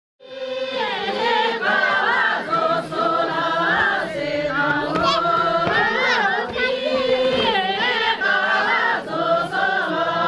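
A group of voices singing a song together, starting suddenly out of silence just after the start, with a wavering, ornamented melody.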